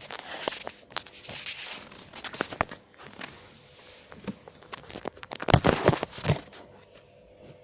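KYB Ultra SR shock-absorber struts knocking: a scatter of sharp knocks, with a cluster of louder, heavier thuds about two thirds of the way through. The struts have started knocking after seven months of use.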